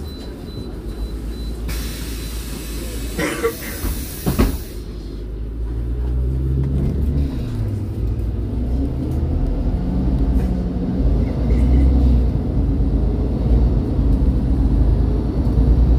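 MAN Lion's City 18C hybrid articulated bus standing at a stop: a burst of compressed-air hiss lasting about three seconds with two sharp knocks, then its engine's low rumble comes up about five seconds in and runs on, growing louder.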